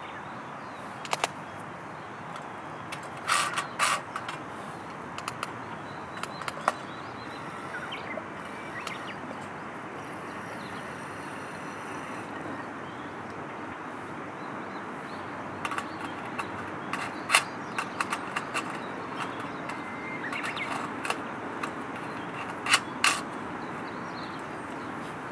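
Steady rush of flowing river water, with scattered sharp clicks and knocks from close by.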